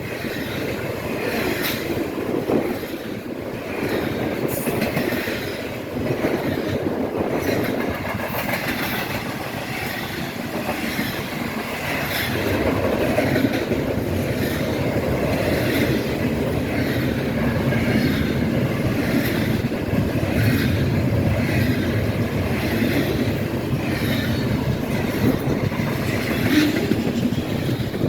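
Freight train cars rolling steadily past, the wheels clicking over the rail joints with some wheel squeal.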